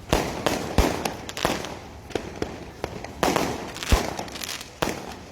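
Fireworks going off: an irregular string of sharp bangs, about three a second, each trailing off with crackle.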